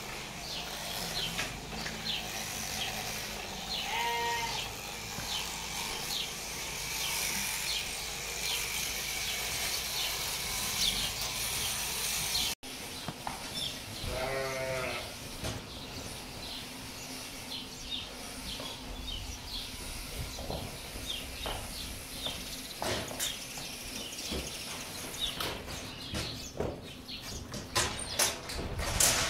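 Sheep bleating twice, a short wavering call about four seconds in and a longer one around fourteen seconds in, over a steady background, with a run of sharp knocks and rustles near the end.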